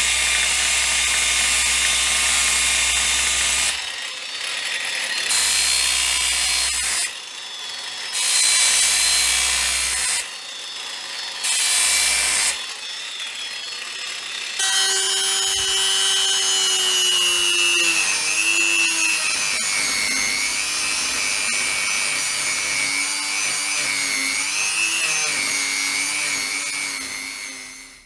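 Electric angle grinder with an abrasive disc grinding a steel hammer head, in several loud passes broken by short quieter gaps. Over the second half the tool's whine drops and wavers in pitch, then fades out at the very end.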